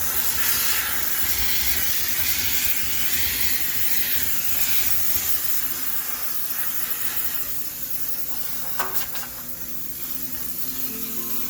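High-pressure steam cleaner hissing steadily as it blasts steam into a washing machine for sterilisation, easing off a little midway, with one sharp click about three-quarters of the way through.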